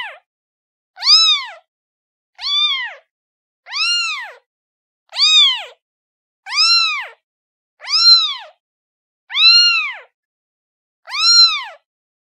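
Kitten meowing over and over, calling for its mother: about nine meows, each rising then falling in pitch, evenly spaced about one and a half seconds apart.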